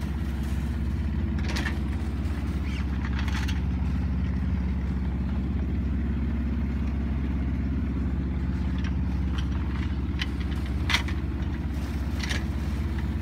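A sailboat's inboard engine runs steadily while motoring with the sails down. It gives an even low drone, with a few brief clicks or knocks over it, the sharpest about eleven seconds in.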